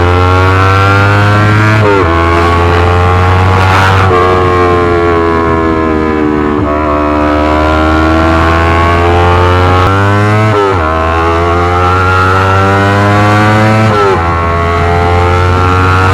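Yamaha R25 parallel-twin engine running loud through a Racefit Slash aftermarket exhaust. It is revved repeatedly: the pitch jumps up about four times and sinks slowly between.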